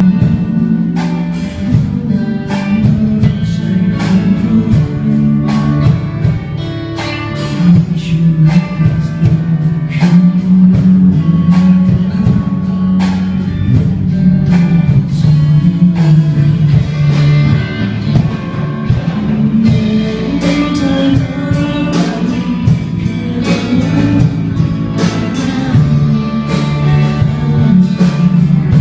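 Music with guitar: plucked guitar notes over a steady bass line and a regular beat.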